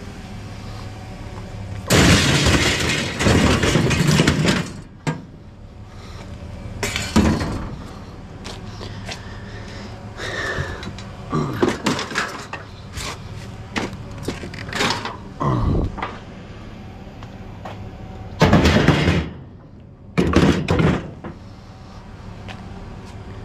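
Scrap car parts and sheet-metal panels being picked through and tossed aside: repeated metal clanks and clatter. There are several louder crashing stretches, the longest about two seconds in and again near the end.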